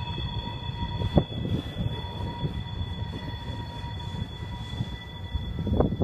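Empty tank cars of a freight train rolling past: a steady low rumble of steel wheels on rail, with a sharp clunk about a second in and a cluster of clunks near the end.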